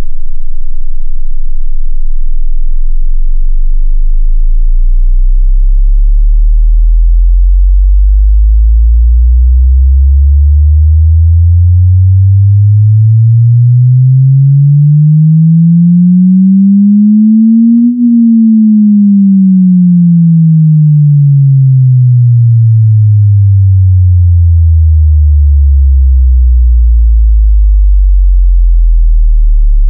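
A pure sine-wave test tone sweeping smoothly up in pitch from 10 Hz to about 250 Hz, peaking about eighteen seconds in, then sweeping back down into the deep bass. It is a low-frequency test sweep for finding the frequency at which a speaker's or headphone's bass becomes audible.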